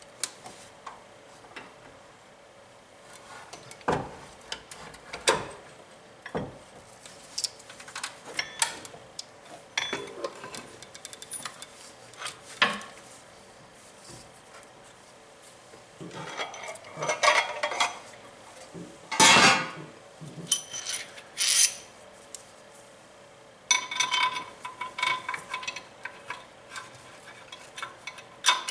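Metal tools and bracket parts clinking, knocking and scraping in a car's engine bay as a supercharger mounting plate is worked into place and bolted up, in irregular bursts. A run of quick metallic clicking fills the last few seconds.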